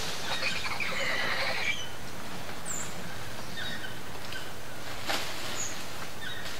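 Rainforest canopy calls: a burst of chattering, whinny-like animal calls in the first couple of seconds, then scattered short high chirps, with one sharp crack about five seconds in.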